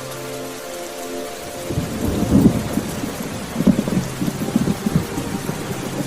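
Steady rain falling, with a rumble of thunder building in after about a second and a half. The thunder peaks twice, around two and a half and four seconds in, then eases off.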